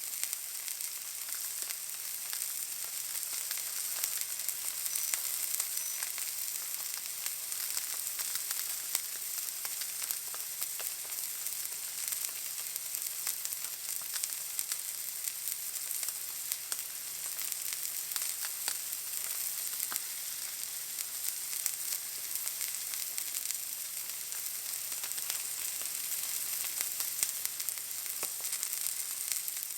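Steak searing in a hot pan: a steady sizzle with many small crackles and pops.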